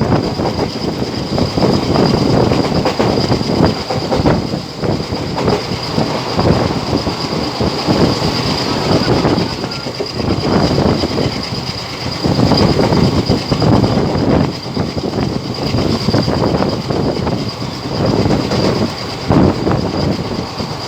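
A passenger train running through at speed without stopping, its wheels clattering and rumbling over the rails in an uneven rhythm, with a steady high-pitched whine running over the top.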